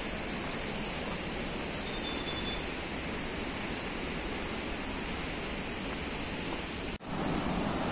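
Steady rushing of a waterfall heard from the path above it: Changey Falls, full of water. The sound drops out briefly about seven seconds in, then comes back a little louder.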